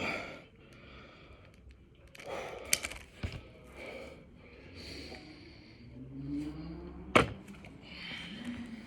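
Heavy breathing during six-count burpees: a run of deep breaths in and out, with a sharp thud about seven seconds in, the loudest sound.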